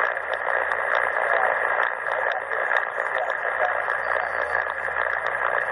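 CommRadio CR-1a shortwave receiver's speaker giving steady static and band noise while tuned to 7.272 MHz on the 40-metre amateur band between stations' transmissions. The hiss is narrow like a voice channel and has a steady tone running through it.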